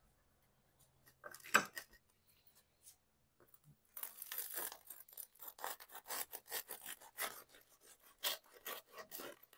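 A knife sawing back and forth through the crisp crust of a large baguette, a rasping crunch with each stroke, starting about four seconds in. A single short sound comes earlier, about one and a half seconds in.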